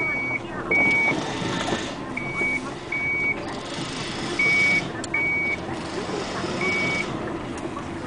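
Dump truck's reversing alarm: short high beeps in pairs, repeating about every two seconds, over steady diesel engine noise.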